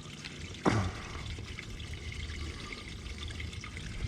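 Water trickling and lapping around a small fishing boat, with one sharp knock about half a second in.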